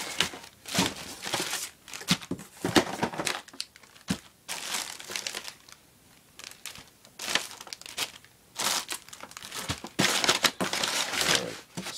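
Clear plastic bags crinkling and rustling in irregular bursts as bagged items are pulled out of a cardboard box and laid down, with a short lull about halfway through.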